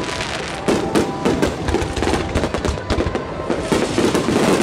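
Fireworks barrage: aerial shells bursting in rapid succession, the bangs overlapping with hardly a gap.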